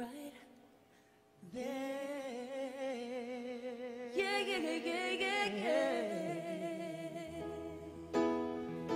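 A man and a woman singing a slow soul ballad live, with long held notes, wide vibrato and vocal runs, almost unaccompanied. Near the end a low bass note and a held keyboard chord come in under the voices.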